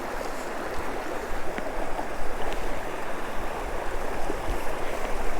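River water rushing steadily over rocks and ice: a continuous, even wash of running water.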